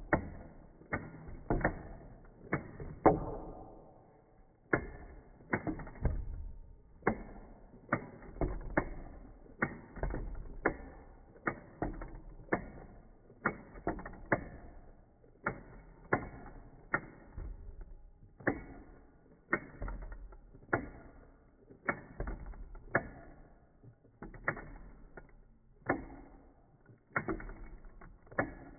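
Clockwork mechanism of a wind-up squirrel toy made in Occupied Japan, clicking as it runs, slowed down. Sharp clicks come about once a second, sometimes in pairs, each trailing off in a short rattle.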